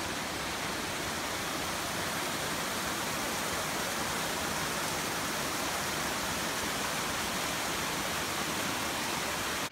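Mountain stream running over rocks in small cascades: a steady, even rush of water that cuts in and cuts off abruptly.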